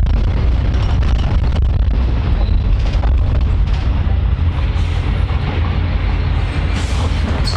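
Steady low rumble inside a moving public transport vehicle, with small rattles and knocks and a short hiss near the end.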